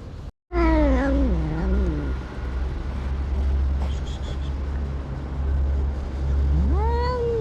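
A cat giving a long, wavering, drawn-out meow that slides down in pitch, then starting another call near the end that rises and wobbles. A steady low rumble runs underneath.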